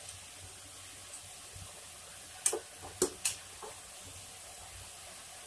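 Hot oil sizzling steadily around batter-coated bondas deep-frying in a kadai. Three short sharp clicks come a little after halfway, as a hand knocks against the steel bowls.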